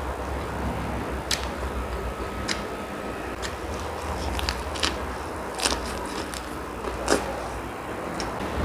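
Close-up mouth sounds of a person eating linguiça sausage: chewing with sharp wet smacks and clicks every second or so, over a steady low hum.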